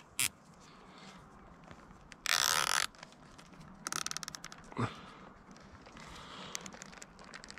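Plastic zip tie pulled through its ratchet to cinch a cable. There is a quick, even zip about two seconds in, then a shorter run of rapid clicks a second and a half later. A single click comes just after the start and a light knock follows near five seconds in.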